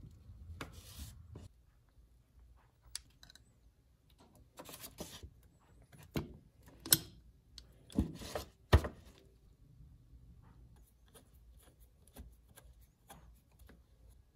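Parts of a Stanley egg beater hand drill being handled and fitted together: scattered metal clicks and taps with short stretches of rubbing. The sharpest clicks come about halfway through.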